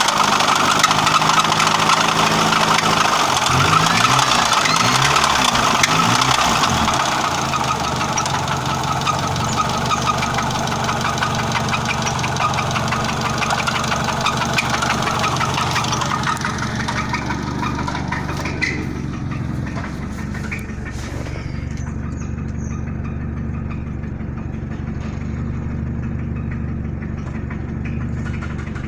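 1999 Honda Civic engine running, revved up and back down several times in the first seven seconds, then settling to a steady idle. The owner hears a strange noise from the engine like metal rubbing on metal, which he cannot yet explain.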